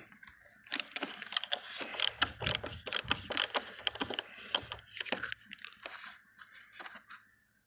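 Metal hand tool working the rusted screws of a car's T-top center rail: a run of irregular clicks and scrapes of metal on metal.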